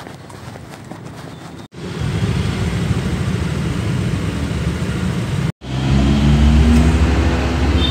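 Road traffic in a jam of motorbikes and cars: engines running in a low rumble, breaking off for an instant twice. After the second break a steady low engine hum is the loudest sound.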